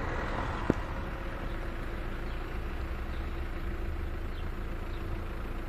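Train rolling slowly into a station: a steady low engine rumble with a faint held hum, and a single sharp click about a second in.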